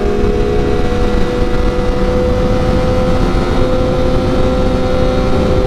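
Triumph Daytona 675R's three-cylinder engine running at steady revs while cruising, its pitch holding level, over a continuous rush of wind noise.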